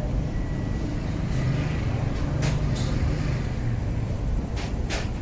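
Steady low rumble of city traffic, with a few short sharp clicks.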